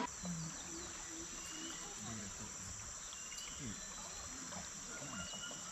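Steady high-pitched insect chorus from the surrounding forest, with a few short chirps and faint distant voices talking underneath.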